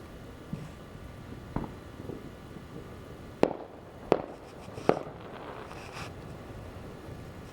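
Fireworks going off: a fainter bang about a second and a half in, then three sharp bangs under a second apart, and a lighter pop a second later.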